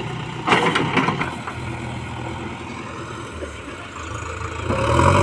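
Heavy diesel engine of a working machine running steadily, with a few sharp knocks in the first second; near the end the engine revs up and gets louder.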